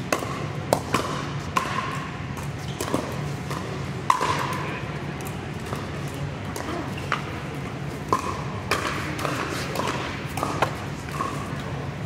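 Pickleball paddles striking a hollow plastic ball: sharp pops at irregular intervals, some with a short ring, the loudest about four seconds in.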